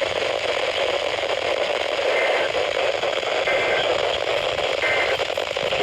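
Weather radio receiver hissing with steady static on a weak signal, with three short, faint high squawks about a second and a half apart.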